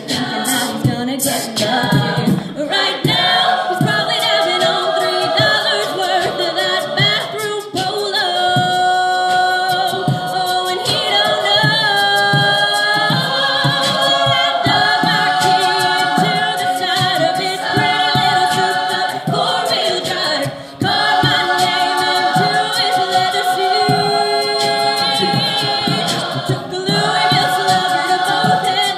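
Mixed choir singing a cappella in held, stacked chords, with a vocal percussionist on a microphone keeping a steady beat underneath.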